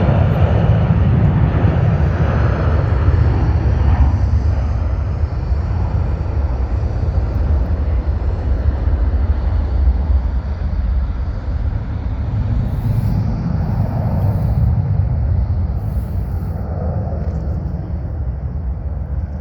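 Boeing 737-800's twin turbofan engines at takeoff power: a loud, deep, continuous jet roar with a high whine sliding down in pitch over the first few seconds, slowly fading as the airliner moves away.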